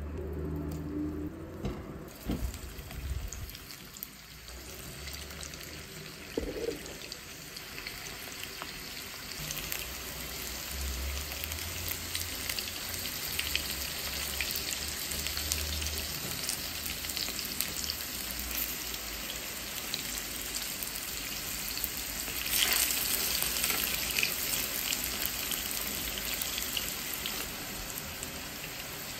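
Small potato halves frying in hot oil in a nonstick pan, a steady sizzle that builds as they cook and swells louder for a few seconds later on. A few soft knocks early on as the potatoes are set into the pan.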